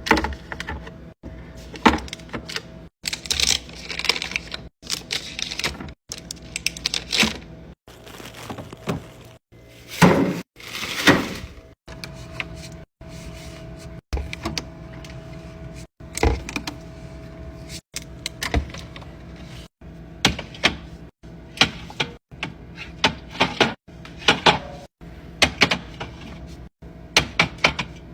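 Restocking sounds in quick succession: packaged food and plastic containers being set down, tapped and rustled, with sharp clicks and knocks every second or so and short abrupt cuts between them.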